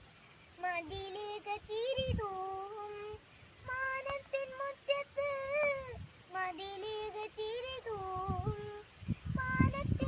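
A young girl singing a melody, in phrases of about three seconds with held notes that bend and waver, and short breaths between phrases.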